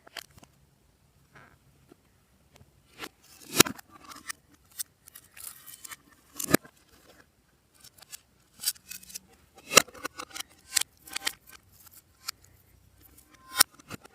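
Glossy slime being handled and mixed by hand, giving irregular sharp pops and clicks with softer crackling between them, four pops standing out as loudest.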